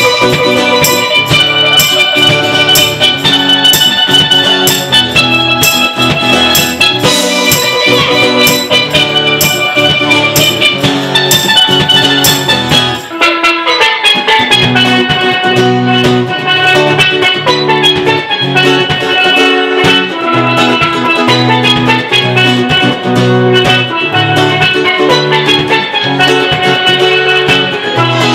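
Instrumental live music: a steel pan carrying the melody over strummed acoustic guitar, with a drum beat and cymbal keeping steady time.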